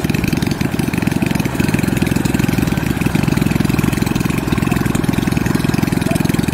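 Rice harvester's engine running steadily in a fast, even chugging rhythm while the machine drives through deep floodwater.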